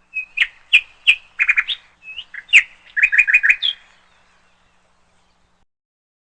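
A bird chirping: two similar phrases of quick, sharp chirps, each ending on a rising note, over about four seconds.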